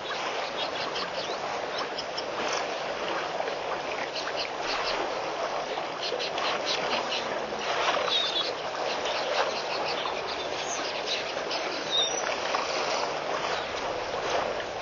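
A large herd of African elephants drinking and wading at a waterhole: a steady wash of splashing and trickling water, busy with small crackling splashes, with a short high chirp about eight seconds in.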